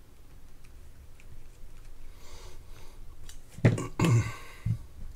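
A few faint ticks of a small screwdriver turning a screw in a spinning reel, then, about three and a half seconds in, a man clears his throat with a short, rough sound, followed by a smaller one just after.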